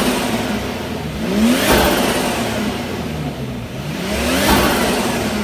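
Nissan Skyline R34 25GT Turbo's RB25DET turbocharged straight-six blipped twice from idle, the revs rising and falling each time, with the chattering turbo flutter (compressor surge) on lift-off that comes from its blow-off valve being blocked off.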